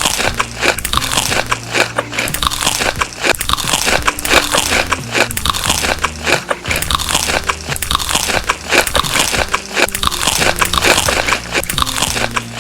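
Loud close-up crunching and chewing of crispy food: a dense, unbroken run of crunchy bites that cuts off abruptly near the end.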